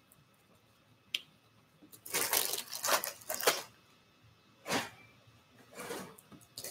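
Things being handled and moved about: a short click about a second in, then several bursts of rustling and shuffling over the next few seconds.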